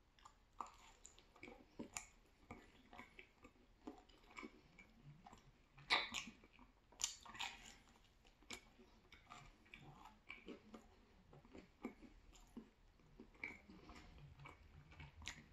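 Close-up chewing and biting of a slice of thin-crust pizza: faint crisp crunches and wet mouth clicks, with louder bites into the crust about six and seven seconds in.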